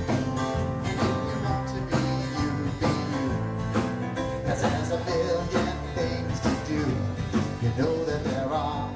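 Live band playing an instrumental passage with acoustic guitar, drum kit, electric upright bass and keyboards, to a steady beat.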